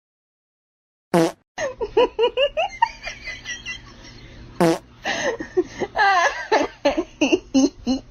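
After a second of silence, a short fart-like noise, then people laughing in quick bursts; a second brief fart-like noise comes near the middle, followed by more laughter.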